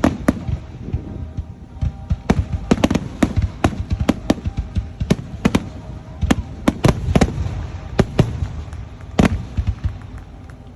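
Fireworks going off: a rapid, irregular string of sharp bangs and pops, thinning out near the end.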